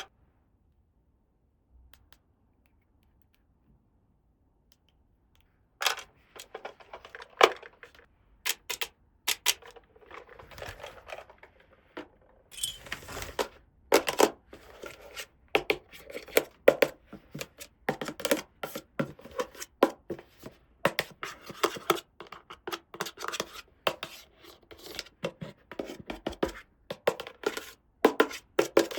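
Small plastic toy pieces and their packaging being handled, starting about six seconds in: quick clicks, taps and rustles, with a short ripping sound about 13 seconds in.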